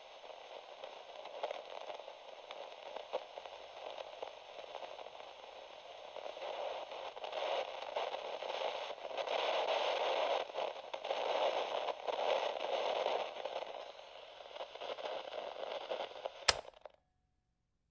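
Crackling static hiss on the audio feed. It swells in the middle, then cuts off abruptly with a click near the end.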